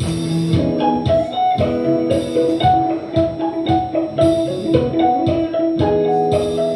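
Electric guitar playing jazz chords and short melodic lines, with each note plucked and then held, over a regular percussive pulse.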